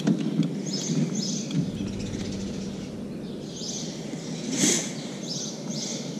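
Birds chirping in short, repeated calls over a faint steady low hum, with a brief swish about four and a half seconds in.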